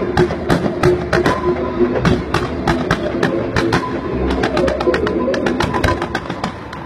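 Fireworks going off in a rapid run of bangs and crackles, several a second, over music with held notes. The bursts thin out and the sound fades near the end.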